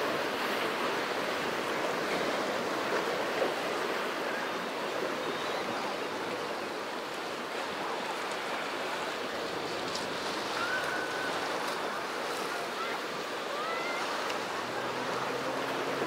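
Small waves washing onto a pebble beach, a steady hiss of surf on the shingle.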